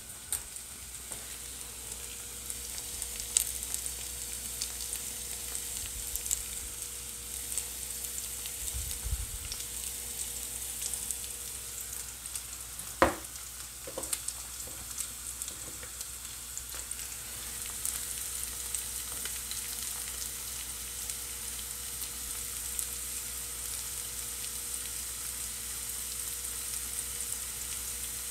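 Potato sticks frying in oil in a frying pan: a steady sizzle with light crackling while the first side browns. One sharp click about halfway through.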